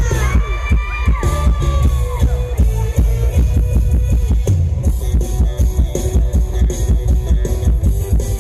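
Mor lam troupe's live band music played loud over the stage sound system, with a steady heavy drum-kit beat. A singer's voice glides over it for about the first two seconds, then the band carries on without singing.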